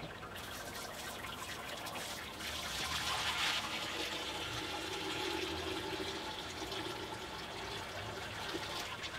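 Hot sparge water poured from a stainless steel pot into the Grainfather's grain basket: a steady trickling, splashing pour that grows stronger about two seconds in. It is the sparge, rinsing the mashed grain.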